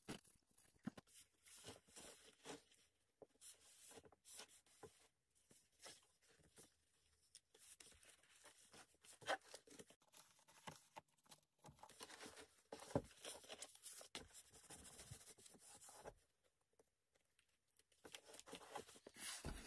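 Faint paper rustles and soft taps from a book and its glued pages being handled and pressed, with scattered small clicks; mostly near silence.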